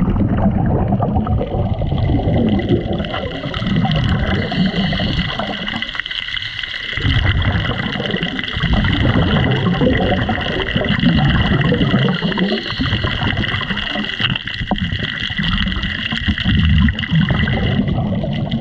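Scuba regulator exhaust bubbles heard by an underwater camera: rumbling bursts of bubbles with each exhale, breaking off briefly about six seconds in and again around fourteen seconds. A steady high hum runs underneath.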